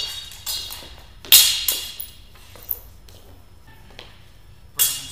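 Sparring swords clashing blade on blade: sharp strikes that ring and fade, a loud one about a second and a half in and another near the end, with lighter knocks between.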